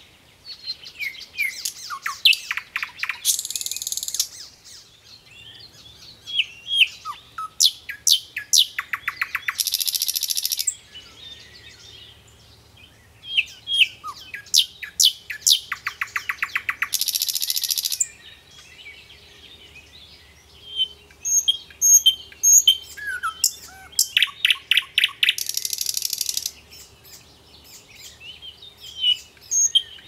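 Common chaffinch singing: four song phrases a few seconds apart, each a run of quick notes ending in a fast trill.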